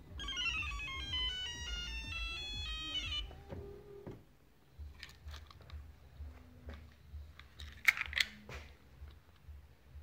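A short electronic ringtone-style melody of stepping beeping notes plays for about three seconds. It is followed by a few light clicks.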